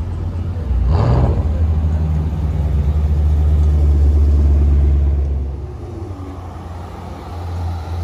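Dodge Challenger widebody's V8 rumbling as it rolls past at low speed, with a short rev about a second in. The engine note fades away about six seconds in.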